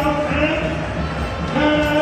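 Music with a singing voice holding long, steady notes, a few per second.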